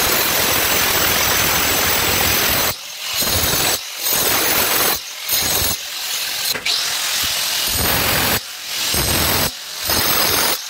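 Handheld angle grinder with a blue abrasive disc grinding the cut edge of a black granite countertop's sink opening. It runs steadily, with several brief dips in loudness.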